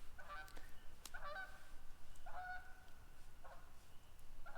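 Canada geese flying overhead, honking in a loose series of about five calls, roughly one a second.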